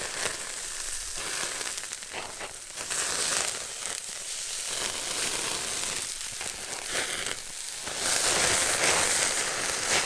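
Sliced pork belly sizzling on a folding fire-pit grill grate over a hot fire, with irregular crackles. It gets louder near the end.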